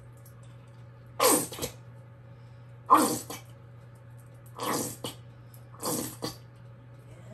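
Plastic squeeze bottle of honey barbecue sauce squeezed four times into a bowl, each squeeze a short sputtering squirt of sauce and air, over a steady low hum.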